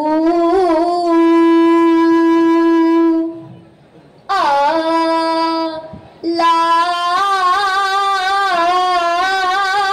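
A single voice singing long held notes in an ornamented Arabic-style chant, with no daff drumming. The first note is held very steady for about three seconds and fades. After a short pause comes a second note. From about six seconds in, a long line wavers and turns in melismatic ornaments.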